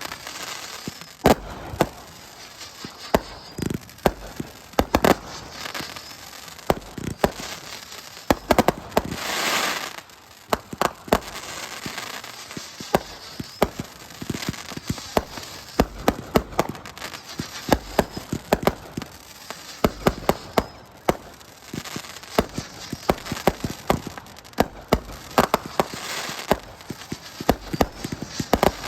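Fireworks going off in rapid, continuous succession: many sharp bangs with crackling between them, and a longer hissing burst about nine seconds in.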